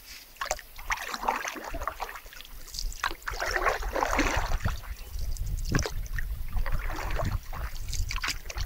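Canoe paddle strokes: irregular swishing splashes as the paddle dips and pulls through the water, over a low rumble of wind on the phone's microphone.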